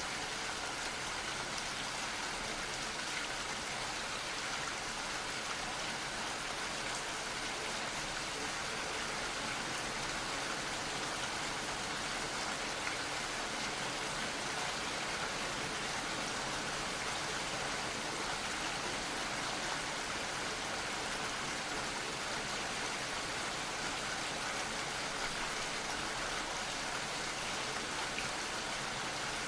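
Gentle rain falling steadily, an even hiss of drops without any change.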